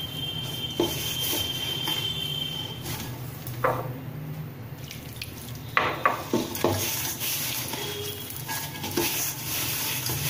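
Gram-flour dough being mixed and kneaded by hand in a stainless steel bowl, with a few sharp clinks and knocks against the steel scattered through.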